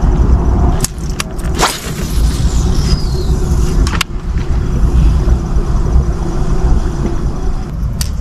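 Rod and reel being cast and worked from a boat: a swish and a few sharp clicks over a steady low rumble with a faint hum.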